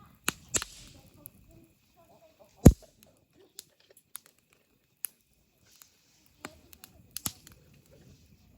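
Wood campfire crackling, with scattered sharp pops, the loudest about two and a half seconds in, and a couple of short spells of hissing.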